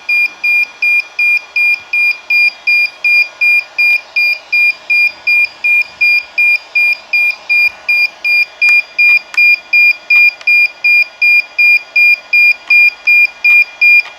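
DJI Phantom 4 quadcopter beeping in a steady, rapid train of short, identical high beeps, about three a second, with a few faint clicks in the second half.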